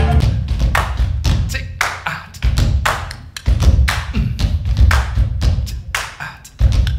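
Live beatboxing and tap dancing: a quick rhythm of sharp taps and clicks over deep bass thumps, the piano dropping out right at the start.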